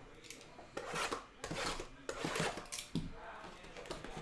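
Cardboard trading-card box and its sealed mini-boxes being handled: rubbing and sliding of cardboard in several rustling bursts, with a short knock about three seconds in.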